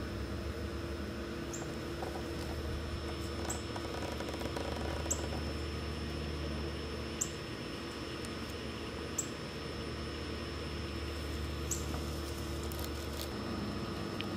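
Outdoor ambience: a steady low hum and a thin high tone, with a short high chirp repeating about every two seconds.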